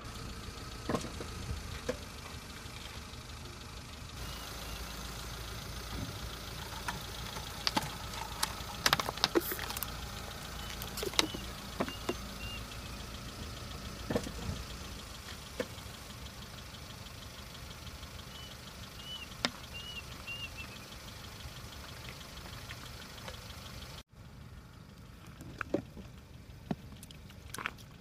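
Car engine idling steadily, with scattered sharp clicks and knocks on top. The low rumble is stronger in the first half, and the sound breaks off suddenly about four seconds before the end.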